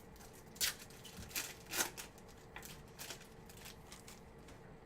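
Trading cards being flipped through by hand: a few short, papery swishes and flicks of card stock, the strongest in the first two seconds and fainter ones after.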